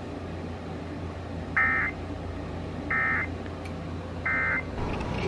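Emergency Alert System end-of-message (EOM) data bursts: three identical short digital screeches, each about a third of a second long and about 1.4 s apart. They mark the end of the alert message. A low steady hum runs underneath.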